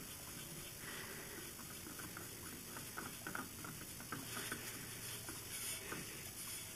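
Faint, irregular light ticks and patter as a hand unscrews a loosened motorcycle oil filter.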